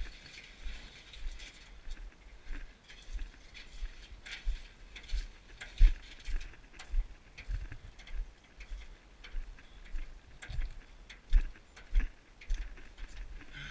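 Steady walking footsteps on a dirt and leaf trail with a canoe carried overhead, each step jolting the hull in a dull thump, about one and a half a second, with small knocks and rattles from the canoe and yoke in between.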